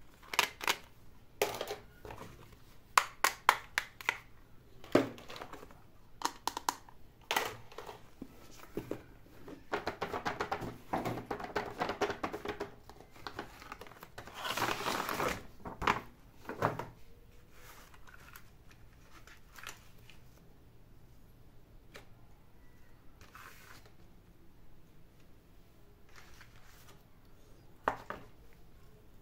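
Unboxing sounds: hard plastic toy accessories clicking and tapping as they are handled and set down, then the crinkle and rustle of a cardboard doll box and its plastic window being opened about halfway through, followed by only faint handling sounds.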